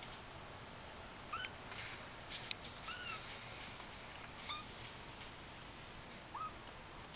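Young Persian kitten, about three weeks old, giving four short, high squeaky mews spaced a second and a half to two seconds apart. Soft scuffling and one sharp click come around two seconds in, with another scuff a little after the middle.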